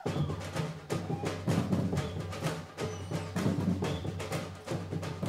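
A percussion group drumming a fast, driving rhythm on large metal-shelled surdo bass drums, with quick strokes from smaller drums and hand percussion over the low beat.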